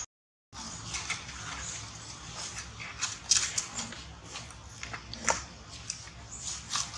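Monkeys moving about on rock and dry leaves: short scratchy rustles and clicks, loudest a little over three seconds in and again about five seconds in, after a brief gap of silence at the start.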